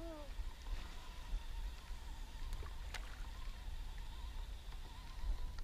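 Low steady rumble of wind and water lapping around a small boat on open water, with a faint click about three seconds in.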